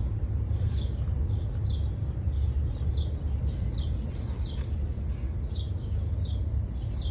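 A small bird chirps over and over, short falling chirps every half second to a second, over a steady low rumble.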